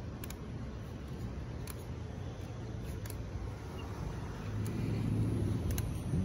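Street traffic rumbling steadily, with a vehicle growing louder about four and a half seconds in. Faint short clicks come roughly every second and a half.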